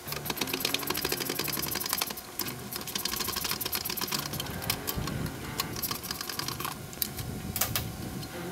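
Hand ratchet clicking in quick runs as the old turn-signal mounting bolt is backed out of the motorcycle's rear fender.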